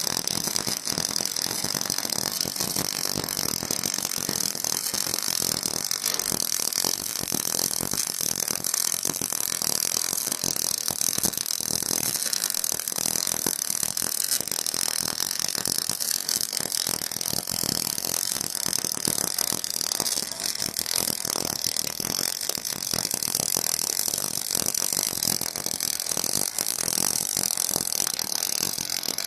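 Semi-automatic wire-fed arc welding: the welding arc crackles and sizzles steadily and without a break as the torch lays a weld bead on steel plate.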